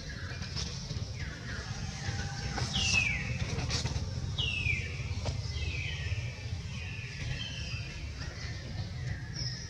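Baby macaque crying: a series of high-pitched cries, each falling in pitch and trailing off, one every second or two.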